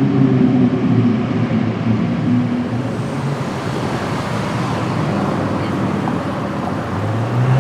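Car engine running at steady low revs, its note fading over the first few seconds into street traffic noise; another engine comes in near the end.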